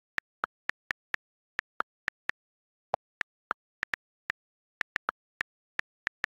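iPhone on-screen keyboard key clicks: a quick, irregular run of short clicks, about four a second, one for each key tapped while typing.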